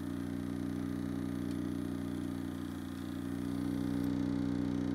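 Homemade tin-can thermoacoustic heat engine running in steady self-sustained oscillation, driven by water vapour from water injected into it: a low, steady hum with several overtones that grows slightly louder a few seconds in.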